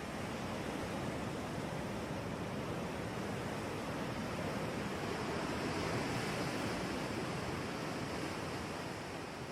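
Steady rushing noise, swelling a little and then fading near the end.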